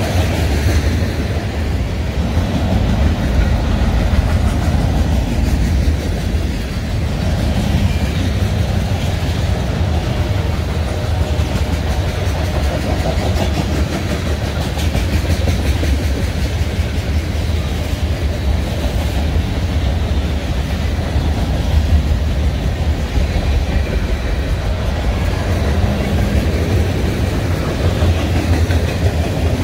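Freight train cars (tank cars, boxcars and covered hoppers) rolling past: a steady rumble of steel wheels on the rails with fast, continuous clickety-clack.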